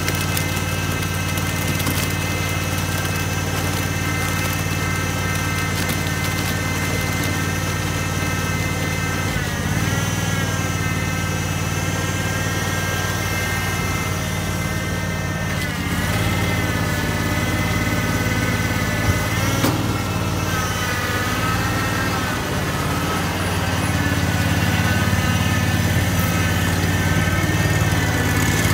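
Small gas engine of a tracked power concrete buggy running steadily while the buggy tips concrete out of its tub. The engine's pitch wavers a few times.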